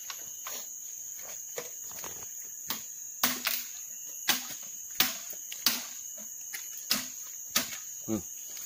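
Machete chopping at a bamboo stem: a string of sharp strikes, about one a second, harder from about three seconds in. Under them runs a steady high drone of insects.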